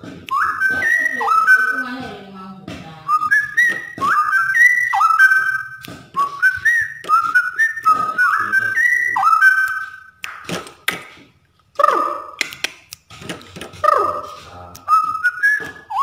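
Straw-headed bulbul (cucak rowo) singing: a fast run of loud, rich whistled phrases that leap and slide up and down in pitch, breaking off briefly a little past the middle.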